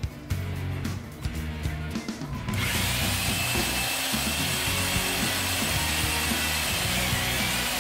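A line-honing machine working the main bearing bores of a Chrysler 440 big-block's cast-iron block. A few clicks and knocks come first, then about two and a half seconds in a steady hiss with a faint high motor whine starts and carries on.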